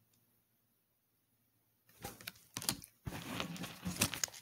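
Almost silent for about two seconds, then a run of short clicks and rustles from paper oracle cards being handled.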